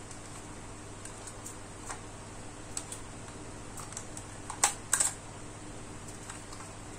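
Light plastic clicks and taps from a DJI Mini 2 drone being handled as its arms and propellers are folded, with a short cluster of sharper clicks a little past the middle.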